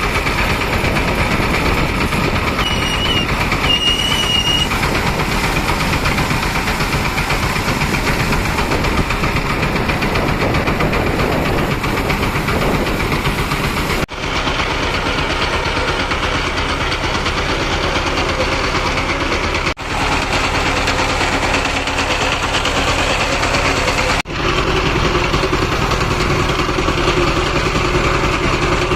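Loud, steady engine rumble of running motorcycles, with the noise changing abruptly three times at edits. A short high whistle sounds twice a few seconds in.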